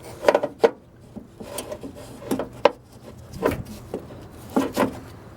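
Irregular knocks and light clatter of the just-removed power antenna assembly being handled: about eight sharp knocks, unevenly spaced.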